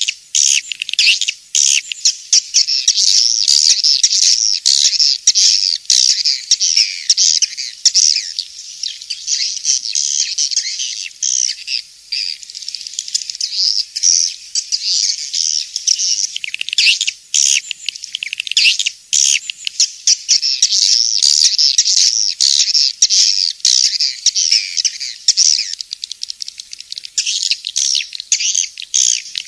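Swiftlet calling recording: a dense, continuous chattering twitter of many edible-nest swiftlets, high-pitched and with nothing in the low range, broken only by short gaps. It is a lure call of the kind played from swiftlet houses to attract birds to roost and nest.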